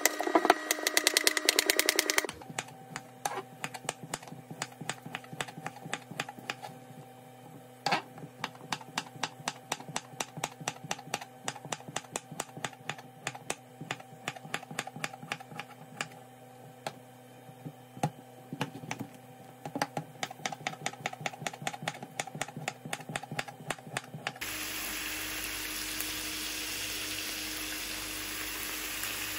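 Kitchen knife slicing through a courgette on a wooden chopping board: a quick run of cuts at first, then steady strokes about two or three a second, each a sharp tap of the blade on the board. Near the end the chopping stops and frying food sizzles steadily in a pan.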